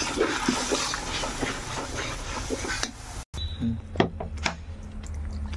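Metal spatula stirring and scraping masala paste as it fries and sizzles in a large aluminium kadhai. After a cut about three seconds in, the hiss stops and a few sharp metal clinks sound against the pan as water is poured in from a steel glass.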